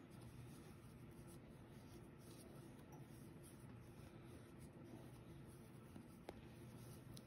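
Faint rustling of yarn being wound around a chenille pipe cleaner, over a low steady hum, with one soft click near the end.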